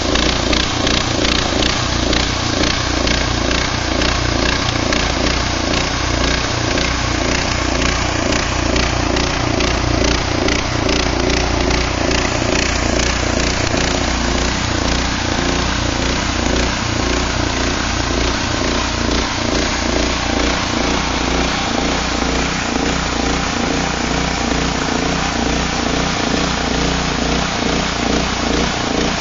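Band sawmill running steadily as its blade cuts a plank from a log, with an even, unbroken mechanical noise.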